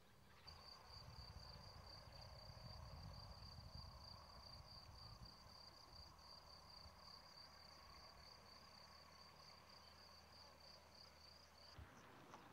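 Faint, steady high-pitched trill of an insect, slightly pulsing, over a low rumble. It starts about half a second in and cuts off just before the end.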